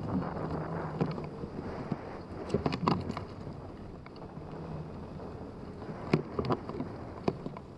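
Airflow rushing over a wool-covered camera microphone on a hang glider in flight, with occasional brief buffeting knocks from gusts.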